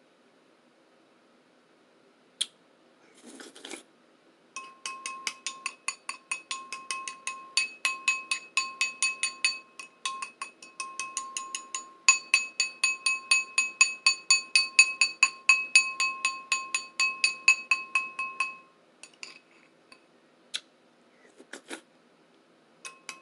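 A bowl tapped rapidly, about four or five taps a second, each tap ringing with the same clear tones. A short scrape comes just before the tapping, which pauses briefly about ten seconds in and gives way near the end to a few scattered clinks.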